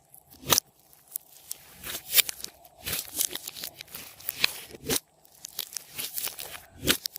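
Store-bought slime being handled by hand, giving irregular sticky clicks, pops and crackles, with a few sharper snaps.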